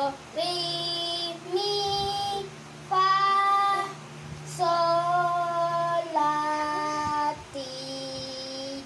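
A boy singing sol-fa syllables unaccompanied, one held note at a time: about six notes in a row, each sustained for roughly a second with short breaks between.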